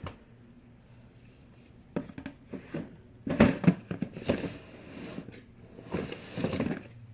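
Small plastic fidget toys being handled and set down one by one: scattered clicks and light knocks with some rustling, starting about two seconds in.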